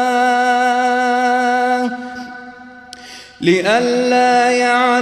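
Male voice reciting the Quran in melodic tajweed, holding one long steady note that breaks off about two seconds in and fades away with reverberation. After a short breath the voice comes back in about three and a half seconds in with a rising, ornamented phrase.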